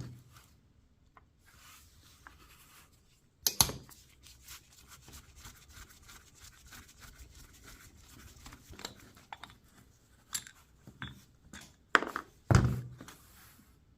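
Small metal carburetor parts being handled and worked on: a few sharp knocks and clinks, one about three and a half seconds in and two near the end, with light scraping and rubbing between them.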